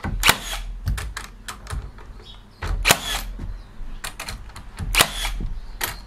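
HiKOKI NR3665DA 36V cordless metal connector nailer firing three times, about two to two and a half seconds apart, driving 65 mm nails through a steel hurricane tie into timber, with lighter clicks between the shots.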